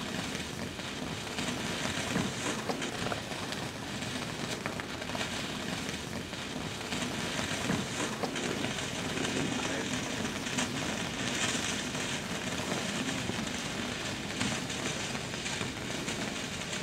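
Firework fountain spraying sparks: a steady rushing hiss with fine crackling throughout. This is the opening fountain stage of a 200-gram consumer cake.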